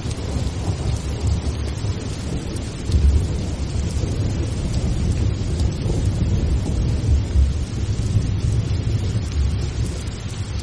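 Steady rain with a low rolling rumble of thunder, swelling about three seconds in and again around seven seconds.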